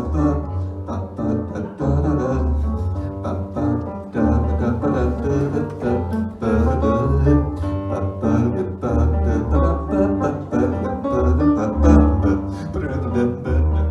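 Live band playing an instrumental passage, with a moving bass line under the other instruments.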